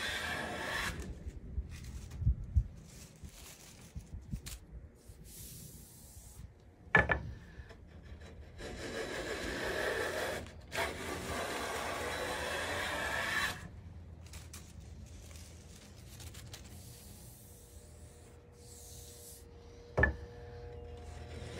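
Smoothing plane, freshly tuned, taking shavings off a board edge in long hand strokes that sound like wood being rubbed and rasped. Two sharp knocks cut in, about seven seconds in and near the end.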